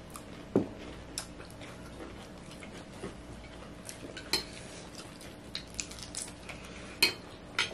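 Forks and spoons clinking and scraping on plates as people eat, with short sharp clinks scattered through and the loudest about half a second in and just after seven seconds.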